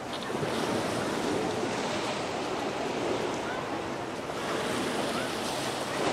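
Sea waves washing against a rock breakwater, a steady rushing wash, with some wind on the microphone.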